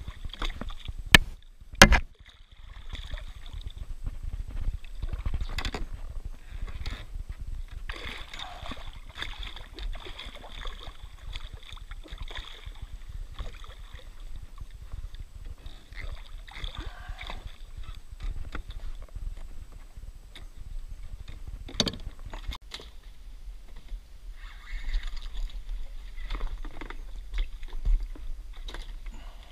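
Water splashing and sloshing beside a kayak as a hooked shark thrashes at the surface, with two sharp knocks about one and two seconds in.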